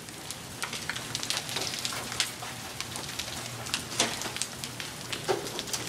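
Hail and rain falling steadily on surfaces, with scattered sharp clicks of individual hailstones striking, as a hailstorm eases off.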